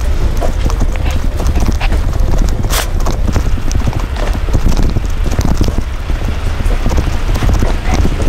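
Wheels of a pushed pet stroller rattling and clattering over rough pavement, a dense run of small clicks over a low rumble.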